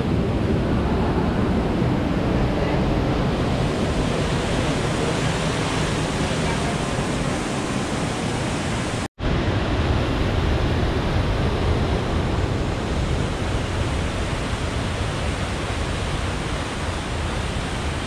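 Waterfall on the Amnicon River, a steady rush of falling and churning water. It breaks off for a split second about nine seconds in.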